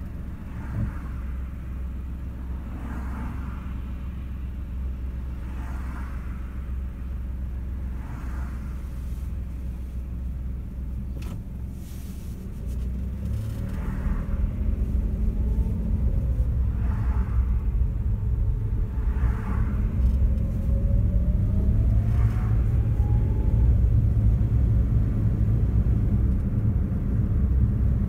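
Car driving, heard from inside the cabin: a steady low rumble of engine and road noise that grows louder about halfway through, with an engine note rising in pitch as the car speeds up.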